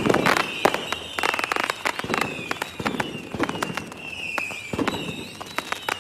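Fireworks going off in quick succession: dense crackling pops and bangs, with high whistles that slowly fall in pitch.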